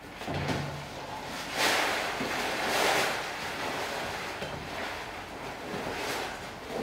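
Sand-type cat litter poured and sliding in a plastic litter tray: a rushing hiss that swells about a second and a half in, peaks around three seconds and then tapers off.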